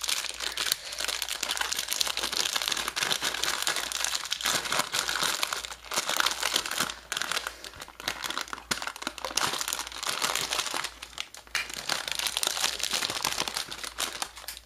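Thin clear plastic wrapping crinkling and crackling irregularly as it is handled and peeled off a 3x3 puzzle cube, with a few brief pauses.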